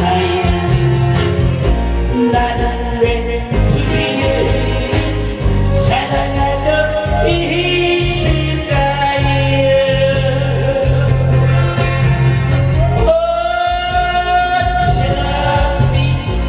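A singer performing a Korean trot song live over a loud backing track with a steady bass beat.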